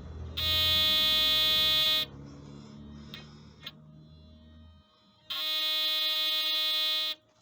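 Toyota U440E automatic transmission's line pressure control solenoid (35290-52010) buzzing loudly twice, each buzz lasting about two seconds, as the accelerator is pressed with the engine off. The transformer-like buzz is a stray noise that the mechanic takes for a solenoid fault, although the transmission reportedly neither jerks nor slips.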